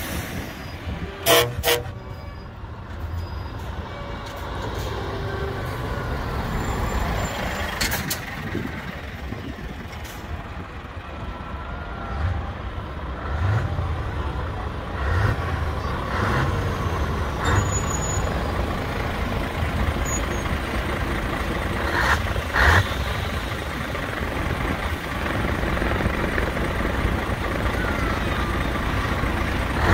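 Trucks in a convoy drive slowly past, their diesel engines running with a steady low rumble. Short horn toots sound about a second in and again around two-thirds of the way through.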